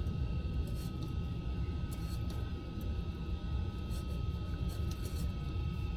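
A steady low rumble, with a few faint clicks and taps of a new oil filter being handled and screwed on by hand.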